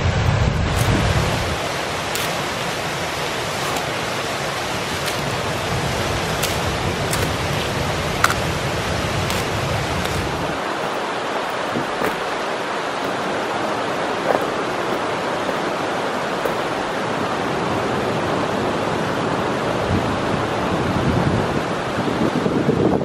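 Steady rush of a rocky mountain stream cascading over boulders. Wind buffets the microphone at the start and again near the end, and a few sharp clicks sound in the first half.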